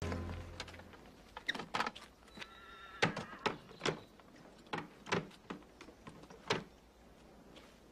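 Film soundtrack of horses and a horse-drawn carriage: irregular hoof clops and wooden knocks, with a short, high horse whinny about two and a half seconds in. A low hum fades out in the first second.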